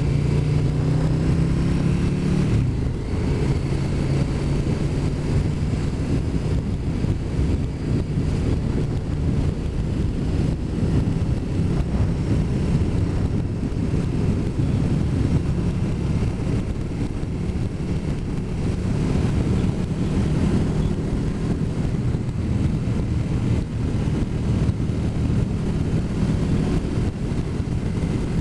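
Motorcycle engine running at a steady cruising speed, with wind rushing over the microphone; the engine note shifts a little about two and a half seconds in.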